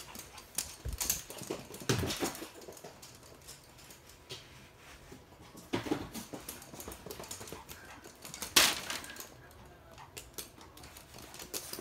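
Toy poodles running and scrabbling on a hard laminate floor: scattered light clicks and taps of claws and paws, with a few louder knocks, the loudest about three-quarters of the way through.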